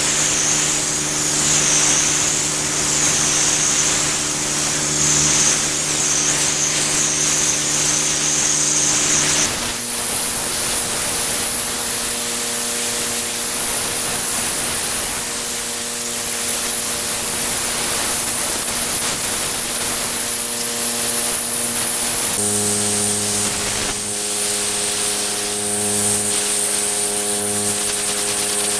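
Pressure washer spraying, a steady high hiss of the water jet over the constant hum of the machine. The hum changes pitch abruptly twice, about nine seconds in and again about twenty-two seconds in.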